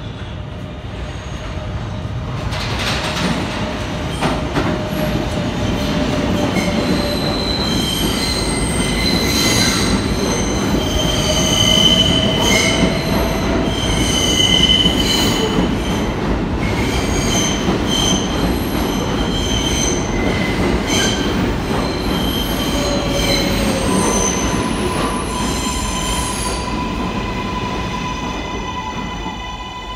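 New York City subway train pulling into the station, with a continuous rumble of wheels on rail and repeated high-pitched wheel squeal as it rounds the curve into the platform. It grows loudest as the cars pass, and a steady whine comes in over the last few seconds as the train slows to a stop.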